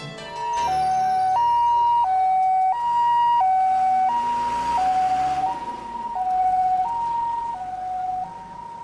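Japanese ambulance's two-tone hi-lo siren, switching between a high and a low tone about every 0.7 seconds as the ambulance drives off.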